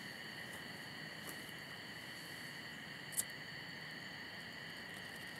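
Steady chorus of crickets and other night insects trilling at several high pitches. About three seconds in there is one sharp click as a lighter is struck.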